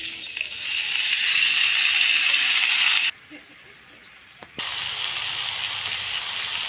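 Eggs frying in hot oil in a pan, sizzling steadily. The sizzle cuts off abruptly about three seconds in and returns about a second and a half later, with a single click in the gap.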